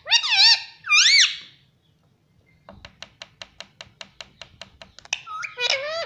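Indian ringneck parakeet giving two loud rising-and-falling whistled calls, then a quick run of sharp clicks at about six a second for two seconds, then more gliding squeaky calls near the end.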